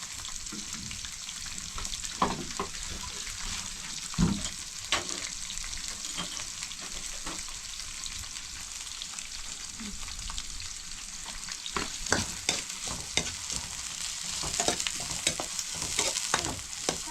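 A steady sizzling hiss with scattered clicks and knocks through it, coming more often near the end.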